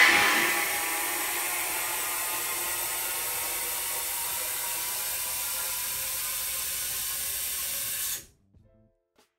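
Compressed nitrogen hissing as it blows through an HVAC line set. This is the final nitrogen purge that pushes the last of the solvent flush out. It is a steady hiss that is loudest at the first burst and cuts off suddenly about eight seconds in.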